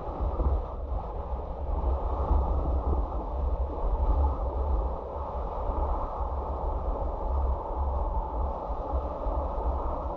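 Steady road and wind noise of a moving car, heard from inside the cabin: a low rumble of tyres and wind buffeting with no distinct events.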